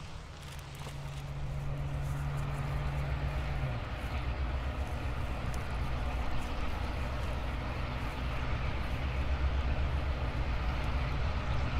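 Diesel-electric locomotives' engines running at a distance, a low rumbling drone that grows steadily louder as they work, with exhaust smoke rising.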